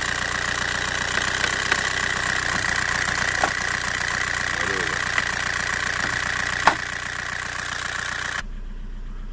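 A 1.9 TDI diesel engine with a rotary injection pump idling steadily with its typical diesel clatter. A few sharp clicks sound over it, the loudest about two-thirds of the way through. Near the end the engine sound drops to a quieter, duller level.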